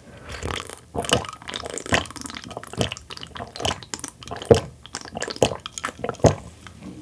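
A person drinking in steady gulps from a glass mug, close to the microphone, about one swallow a second.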